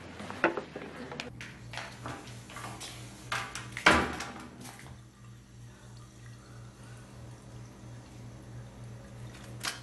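Clunks and knocks, then a loud bang about four seconds in, fitting a toilet-stall door being shut; after it a steady low hum.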